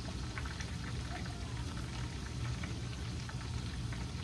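Chicken wings frying in oil in a skillet: a steady sizzle dotted with small crackles and pops.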